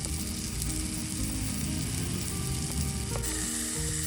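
Beef sizzling on a hot iron griddle plate, a steady frying hiss that grows louder about three seconds in.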